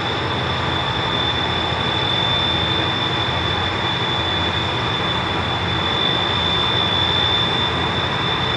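Towboat diesel engines pushing a loaded six-barge tow upstream, a steady low drone under a haze of noise, with a constant high-pitched whine above it.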